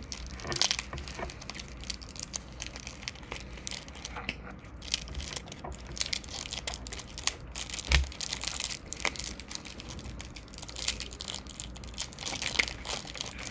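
Trading-card pack wrapper crinkling and tearing as it is handled and opened, in irregular crackles, with a soft thump about eight seconds in.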